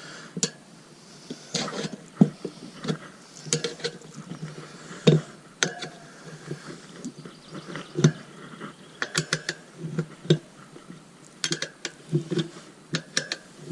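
Irregular metallic clicks and knocks of tools against a motorcycle wheel rim as a tyre bead is levered onto it by hand, with quick clusters of clicks near the middle and toward the end.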